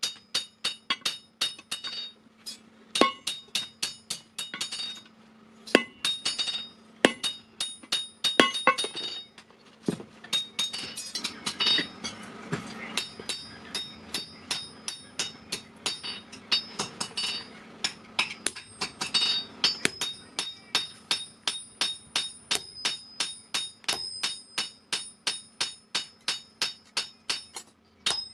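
Hand hammer blows on hot steel over an anvil, forging an old vehicle axle into a hammer head: quick, steady strikes about four a second, each with a high metallic ring, with a few heavier blows in the first ten seconds. A rushing noise runs under the strikes in the middle stretch.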